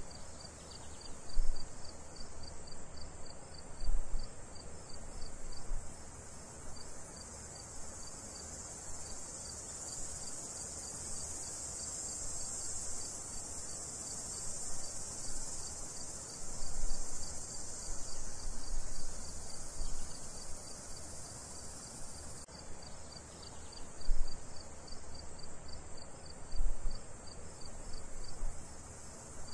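Insects chirping in a steady, evenly pulsing high trill over a high hiss, with a few loud low thumps scattered through.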